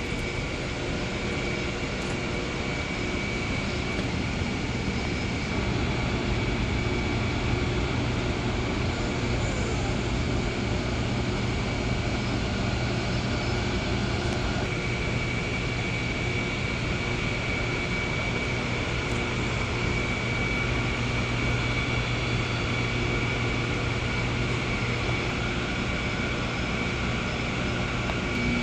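A steady mechanical drone with a faint, steady high whine over it, getting a little louder about six seconds in.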